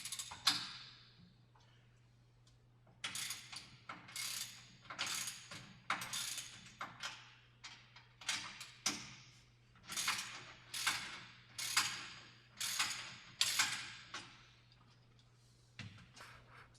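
Ratchet wrench with an Allen socket clicking through about a dozen short strokes, roughly one a second, as the StepMill's tensioner Allen bolts are backed off to slacken the step and drive chains.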